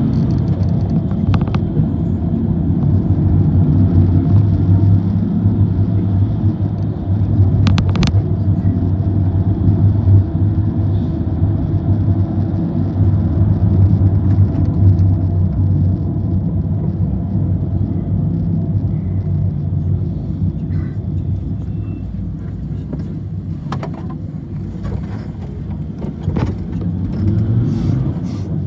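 Steady low rumble of a vehicle's engine and tyres on the road while driving, heard from inside the cabin, with a few sharp clicks or knocks, most of them near the end.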